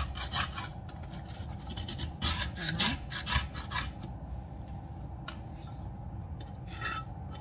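Metal fork tossing cooked mussels in a ceramic bowl, scraping against the bowl in quick repeated strokes. Two bouts of strokes: one ending about half a second in and another from about 2 to 4 seconds in. After that it goes quieter.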